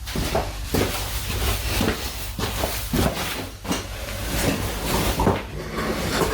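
Harley-Davidson Electra Glide's V-twin engine idling, a steady low rumble with irregular mechanical knocks over it.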